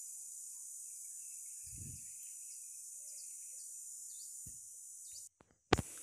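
Steady, high-pitched chorus of insects shrilling in the heat, with a brief low rumble about two seconds in. Near the end the sound cuts out for a moment and a sharp click follows.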